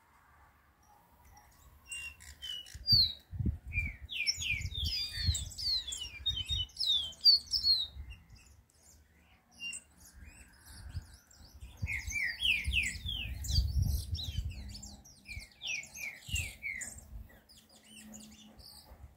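Caged songbird known as a chiviro verde singing in two bouts of rapid chirping notes, each a few seconds long, with a quieter gap between. Low thumps and rumble run underneath.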